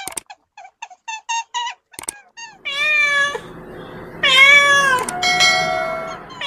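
Domestic cat meowing: two long, drawn-out meows about a second apart, the second running on into a flatter held cry. A run of short, high chirps comes before them.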